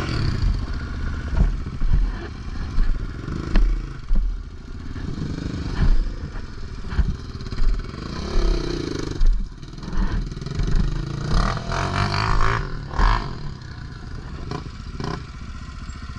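Yamaha Raptor 700 quad's single-cylinder engine being ridden, revving up and falling back in short bursts about once a second, with clattering knocks in between.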